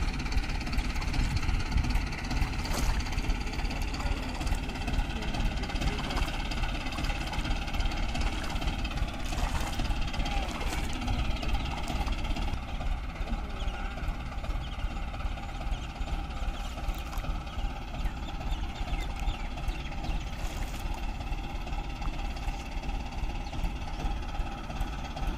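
Mahindra tractor diesel engine running at a steady speed, with an even low pulsing throughout.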